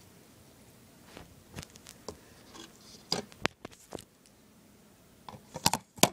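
Handling noise of a phone camera being moved and set against a table: scattered light taps, knocks and rubs, a few sharper knocks near the end.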